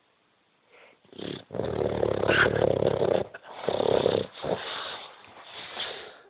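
A drunk man snoring loudly: after a second of quiet, a long, rattling snore of nearly two seconds, a shorter snore, then softer wheezing breaths.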